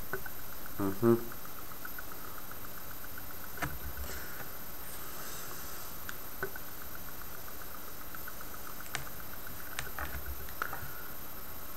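A few sharp clicks from a small spot welder as the wire ends touch its terminals, welding silver wire to nichrome wire, mostly in the second half. A faint fast ticking runs underneath.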